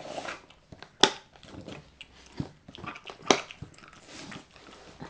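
A dog crunching and chewing hard home-baked dog biscuits, with a few sharp, loud crunches among softer chewing.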